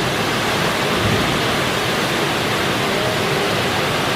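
Steady, even rush of water from a partly frozen waterfall.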